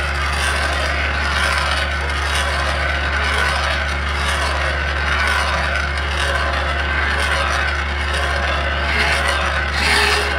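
Mini excavator running steadily, its diesel engine and hydraulics driving a hydraulic R-Top stump drill on the arm.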